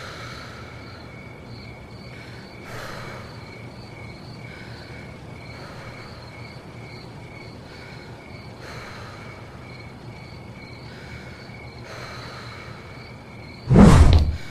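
Night-time ambience of crickets chirping in a steady, regular pulse. A sudden loud noise breaks in about a second before the end.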